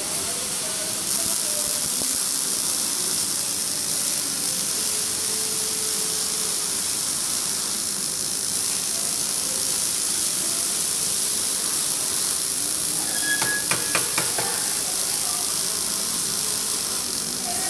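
Robotic MIG welding arc crackling and hissing steadily, a high sizzle like frying. A short run of sharp clicks comes about thirteen seconds in.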